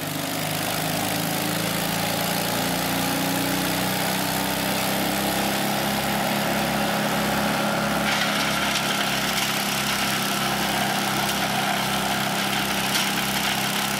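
Towable wood chipper's engine running steadily with a slow, even low throb. About eight seconds in, a brighter hiss with faint ticks joins it.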